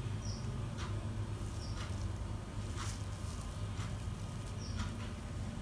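Quiet kitchen background: a steady low hum with faint soft ticks about once a second, while fried rice vermicelli and omelette are laid on a plate with tongs.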